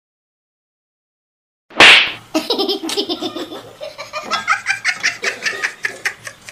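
Silence, then a sudden loud burst a little under two seconds in, followed by hearty laughter in quick repeated bursts.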